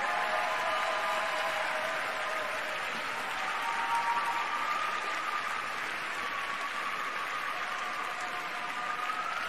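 Arena audience applauding steadily after a figure skating program.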